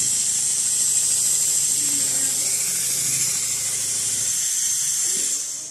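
Automatic sewing machine stitching a quilted upholstery panel: a steady high hiss over a fast, even needle rhythm. The sound drops away near the end.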